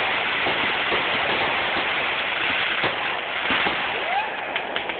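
Fireworks going off in quick succession: a continuous dense crackle of many small pops, with a few sharper bangs, thinning out near the end.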